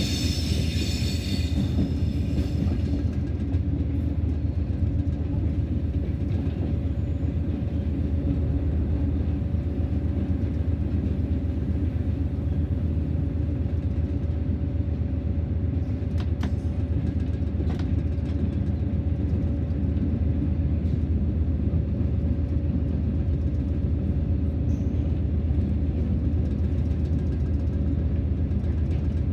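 BB 60000 diesel locomotive running steadily along the track, heard from its cab: a continuous engine drone with rumble from the running gear. A high squeal fades out in the first couple of seconds, and two sharp clicks come a little past the middle.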